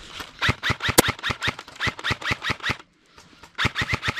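Airsoft M4 rifle firing rapid shots, about seven a second, as two strings of sharp clicks with a short break near the end.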